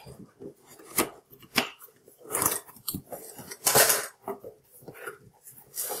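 A CPU cooler's cardboard retail box being opened and handled: a run of small knocks and clicks with several louder bursts of cardboard and packaging rustling, the biggest about two and a half and four seconds in.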